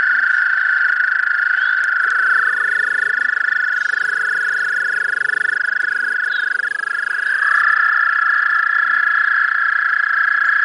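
Chorus of American toads giving their long, high breeding trills, several overlapping so the sound never breaks. One trill slides down in pitch as it ends a couple of seconds in and another near the middle, and a fresh trill starts up soon after, bringing the chorus back to full strength.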